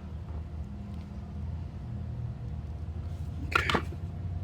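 A steady low hum, with a quick cluster of sharp metallic clicks about three and a half seconds in, as a stretched bullet connector is pushed and worked onto its mate.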